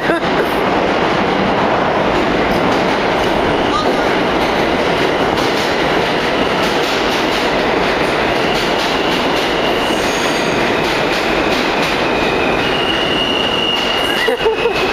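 Subway train running through the station, a loud steady rumble, with the wheels squealing in thin high steady tones from about halfway through.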